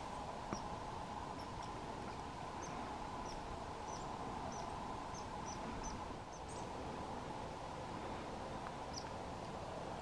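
Short, high-pitched chirps from a small animal, a dozen or more scattered irregularly, over a steady background hum.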